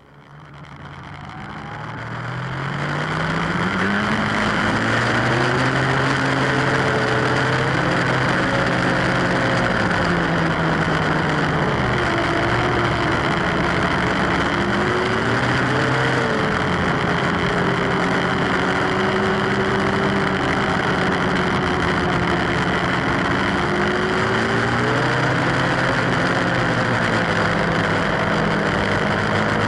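Snowmobile engine running under way. Its pitch climbs as it pulls off over the first few seconds, then rises and falls with the throttle over a steady hiss.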